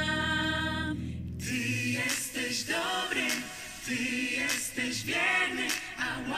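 Sustained instrumental music chord cuts off about a second and a half in, followed by a group of voices singing without accompaniment.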